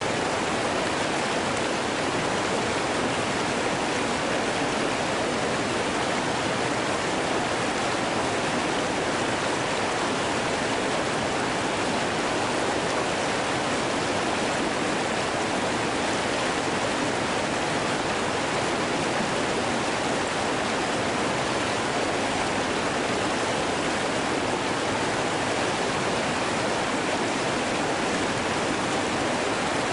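Mountain stream water rushing, heard close up: a steady, even rush with no breaks.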